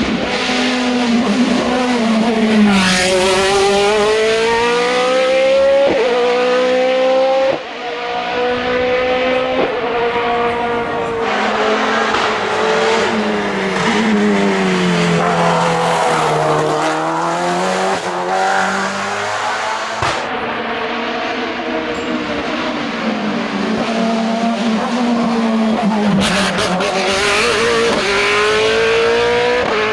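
Hill-climb race car engines revving hard through the gears, the pitch climbing with each gear and falling away on downshifts and braking. The sound cuts abruptly from one car to the next a few times.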